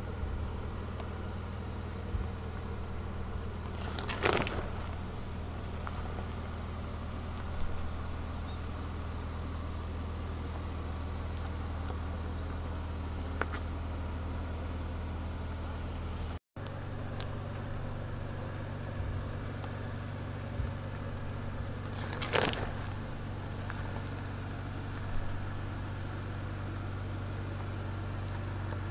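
Ford Ranger Raptor pickup's engine running steadily at low revs as it crawls over rock, with stones cracking and crunching under the tyres, sharpest about four seconds in and again past the twenty-second mark.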